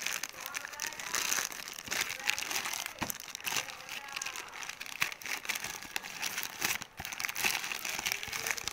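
Plastic courier mailer bag crinkling and rustling as it is cut and pulled open by hand, with frequent sharp crackles and clicks.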